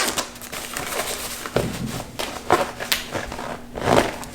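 Packaging and a small carrying pouch being handled by hand during unboxing: irregular rustling and crinkling with a few sharp clicks and knocks.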